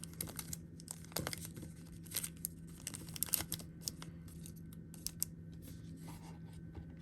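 Packaging being crinkled and torn by hand: an irregular run of short, sharp crackles, busiest from about one to three and a half seconds in, over a faint steady hum.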